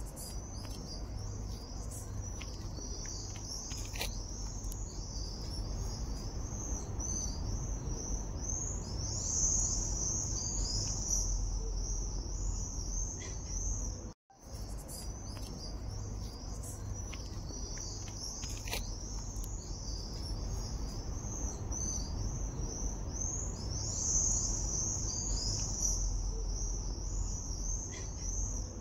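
Dense, steady chorus of high-pitched outdoor chirping, with a low rumble underneath and a few faint clicks. The sound cuts out for a moment about halfway through, then the same stretch repeats.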